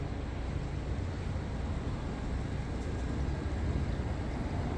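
Boat engine running with a steady low drone, with wind on the microphone.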